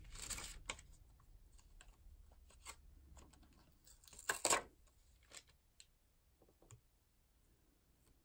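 Clear plastic stamps being handled: peeled off their plastic carrier sheet and pressed onto an acrylic stamping block, giving short crinkling rustles, one right at the start and the loudest about four seconds in, with light taps and clicks between.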